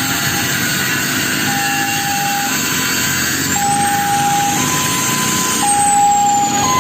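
Two-tone hi-lo siren, a low and a high note alternating about once a second, over a loud, steady rushing noise.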